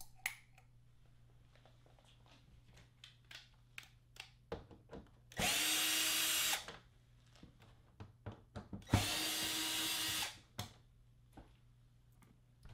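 Cordless drill/driver backing screws out of a flat-screen TV's plastic back cover: two runs of about a second each, about five and nine seconds in. Small clicks and knocks of handling come between them.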